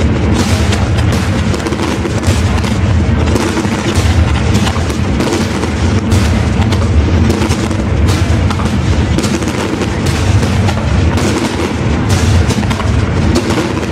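Aerial fireworks display: a continuous barrage of shell bursts and booms, many overlapping each second, over a heavy low rumble.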